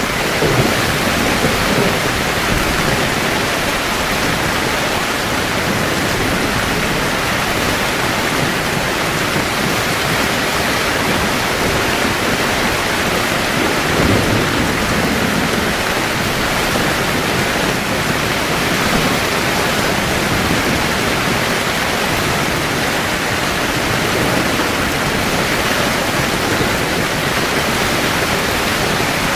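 Heavy rain falling steadily on a camping tent, an even hiss, with low rumbles of thunder about half a second and fourteen seconds in.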